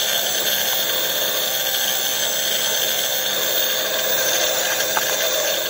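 Electric motor and drivetrain of a HoBao EPX 1/10 RC semi truck whining steadily at high speed as the rear slick tyres spin on asphalt in a burnout. The truck is too light to get much grip.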